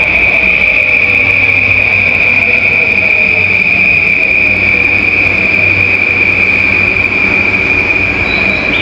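Electric commuter train braking to a stop at the platform: a steady, high-pitched squeal held throughout, over a lower motor whine that falls in pitch in the first few seconds as the train slows.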